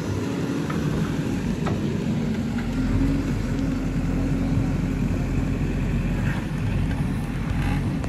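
JCB 3DX backhoe loader's diesel engine running steadily under load while the backhoe arm digs soil. The engine note lifts a little about two and a half seconds in.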